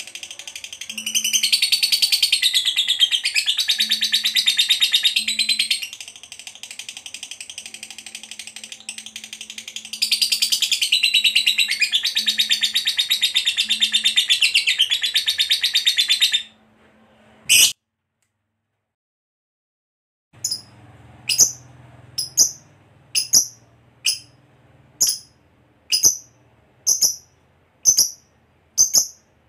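Masked lovebird singing the long, rapid chattering trill that fanciers call 'ngekek panjang', in two long bouts. After a short silence it gives a steady run of short, sharp single chirps, about one a second.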